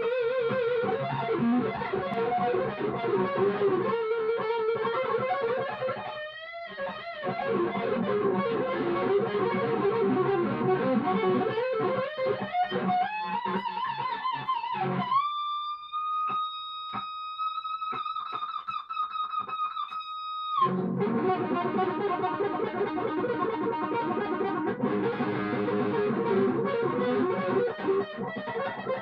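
Stratocaster-style electric guitar played solo through an amplifier: fast improvised lead runs, a bent note about six seconds in, then a bend up into one long sustained high note from about fifteen to twenty seconds before the fast runs resume.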